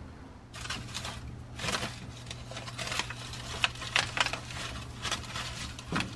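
Crinkling and rustling of a plastic-and-mesh bag of avocados being handled, with several sharp crackles, over a steady low hum.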